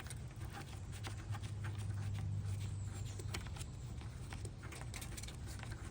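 Irregular light clicks and taps of a wrench and metal fittings as the gas line and burner fittings of a gas water heater are loosened, over a low steady hum that swells about a second in and eases after about three seconds.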